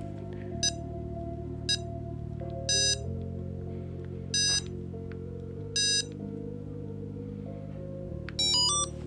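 Card-size LoRa tracker's buzzer beeping Morse code as its button is keyed: two short beeps, then three longer beeps about a second and a half apart, then a quick run of rising beeps near the end. Background music with sustained chords plays underneath.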